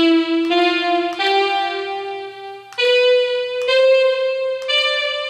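Oberheim Xpander analog synthesizer playing six held single notes in a bright patch, each a little higher than the last and lasting about half a second to a second and a half. It is the repaired synth making sound again after a bad NAND gate chip was replaced.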